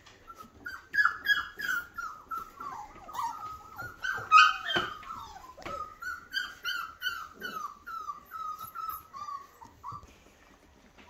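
Four-week-old flat-coated retriever puppies whining and yipping: a quick run of short, high cries, many falling in pitch, about two or three a second, starting about a second in and stopping near the end.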